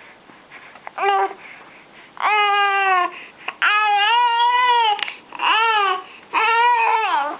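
A baby vocalizing: five drawn-out, high-pitched wailing calls, the first short and the rest about a second long, each bending up and down in pitch, between fussing and babbling.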